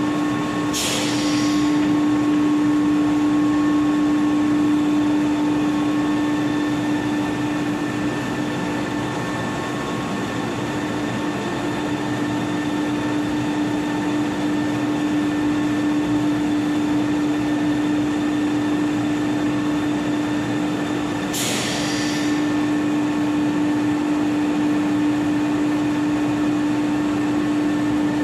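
Electric floor-cleaning machine running with a steady hum, with two brief hisses, about a second in and again about twenty seconds later.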